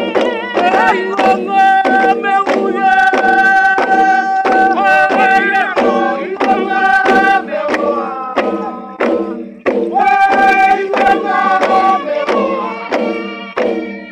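Sia dance music: voices chanting together in unison over steady beats on long hand drums, about two strokes a second. The singing briefly falls away about nine and a half seconds in, then resumes.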